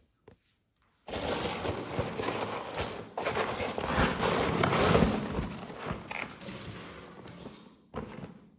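Packaging being crinkled and handled while an item is unwrapped: a dense crackling rustle that starts about a second in, fades away later, and is followed by one short rustle near the end.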